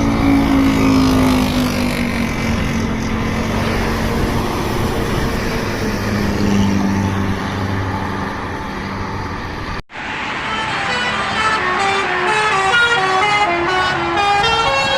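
Road traffic with a heavy vehicle's engine passing, its pitch falling at first. After a sudden break about ten seconds in, a bus's multi-tone telolet (basuri) horn plays a quick melody of stepping notes.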